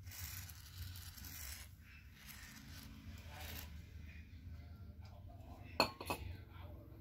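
Handling noise at a workbench: light scraping and rustling with small clinks, then two sharp clicks close together near the end, over a steady low hum.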